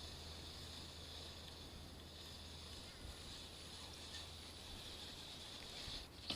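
Quiet outdoor ambience: a steady high-pitched hiss over a low rumble, with no distinct events.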